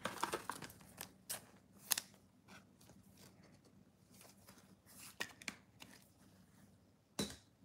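Trading cards and foil pack wrappers being handled: scattered short rustles and clicks as a pack is opened and the cards are slid and sorted, with a sharper snap about two seconds in and another near the end.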